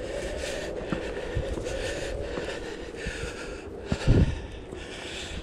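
A hiker breathing hard, in and out about once a second, while climbing steep rocky steps, with a low thump about four seconds in.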